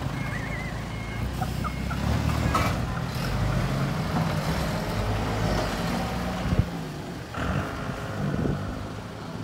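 Vehicle engines running with a steady low drone, and a single sharp clack about six and a half seconds in.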